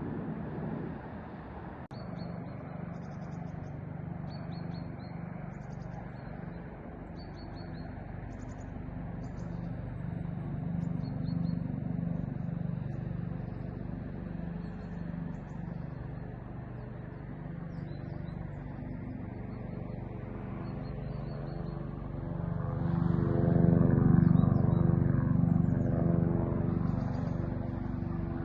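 An engine running steadily with a low pulsing hum. It grows louder about two-thirds of the way through, then eases off. Short high chirps repeat about once a second over it.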